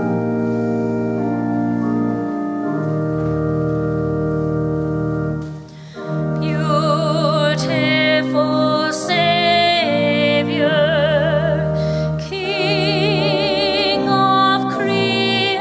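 Live music: sustained keyboard chords, joined about six seconds in by a high melody line with strong vibrato, a soprano voice or flute, over the continuing accompaniment.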